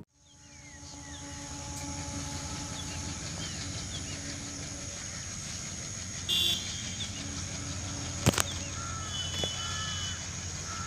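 WDM-3A diesel locomotive's ALCO engine chugging in the distance, a steady low rumble with a few held tones. Birds chirp over it, and there is a single sharp click about eight seconds in.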